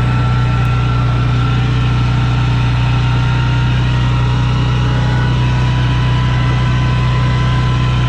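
Motor vehicle engine running with a steady, even low drone.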